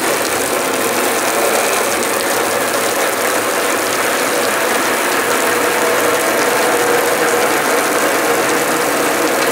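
Steady, dense rattling clatter of small objects falling onto a metal roofing sheet coated with sound-deadening roof paint, with a steady ringing tone running through it.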